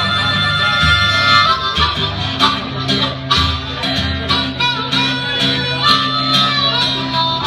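Instrumental music: a harmonica playing a melody over a plucked guitar with a walking bass line.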